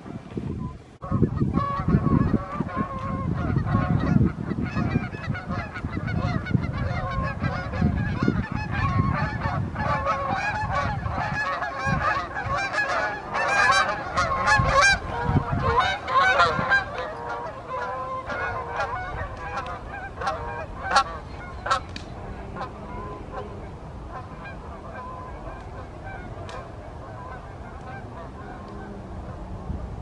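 Flock of Canada geese honking in flight, many overlapping honks, loudest as the flock passes close overhead midway, then thinning to fainter, distant honking in the last third. A low rumble runs under the calls in the first half.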